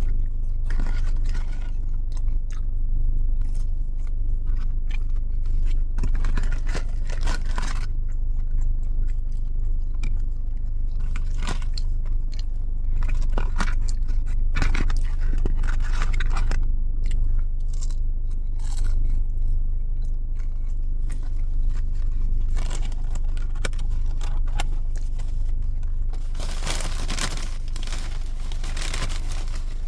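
Close-up chewing and crunching of fast food, with scattered scrapes and rustles of food packaging, over a steady low hum. A denser run of crinkling and scraping comes near the end.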